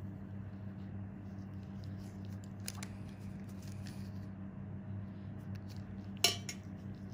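A steady low electrical hum, with a few faint clicks and one sharp click of a small metal tool about six seconds in.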